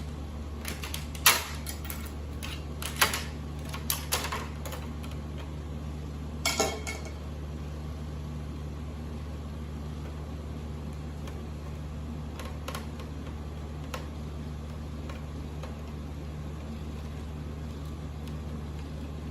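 Scattered clicks and clinks of small plastic and metal parts being handled while a VCR is taken apart, with a brief metallic ring about six seconds in, over a steady low hum.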